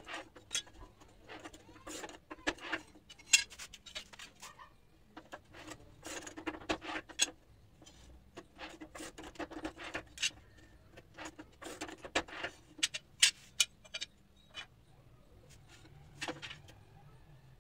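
Manual rail tile cutter in use: irregular sharp clicks, clinks and short scraping runs as tiles are scored and snapped on the cutter and the hard cut pieces are handled and set down.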